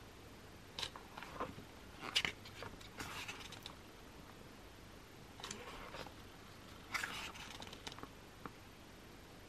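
Pages of a glossy hardcover photobook being turned by hand: several short papery swishes and rustles a second or two apart, quiet overall.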